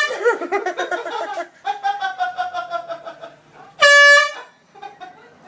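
Handheld air horn blasting twice: a short blast at the very start and a louder, steady, half-second blast about four seconds in. Between the blasts a voice cries out.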